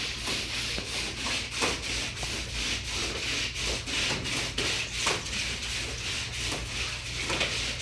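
Plastic frisbees scraping back and forth over the floor under feet in a frisbee-runners exercise, a rubbing scrape repeated a few times a second.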